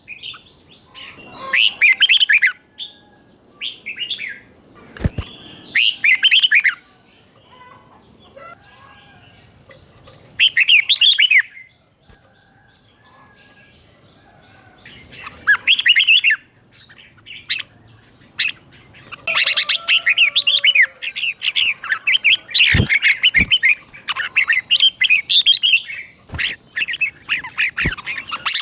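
Red-whiskered bulbul singing: short bursts of rapid warbling phrases with pauses between them, becoming nearly continuous in the last third. A few sharp clicks come between the phrases.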